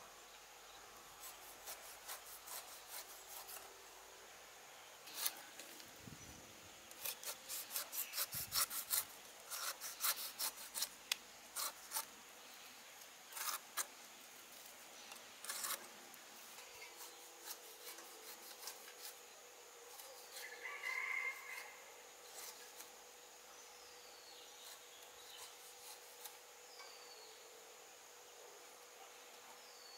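A kitchen knife cutting the skin off a whole pineapple and cutting out its eyes: a run of short cutting strokes, many in quick succession in the first half and fewer, more spread out, later.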